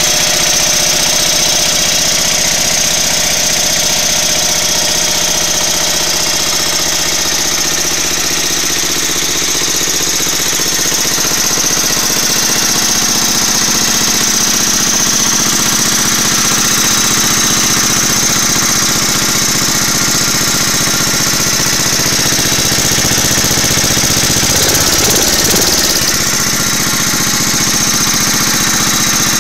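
Briggs & Stratton 16 hp single-cylinder, cast-iron-bore engine driving a 4 kW generator, running steadily at its governed 1800 RPM. The sound shifts briefly near the end.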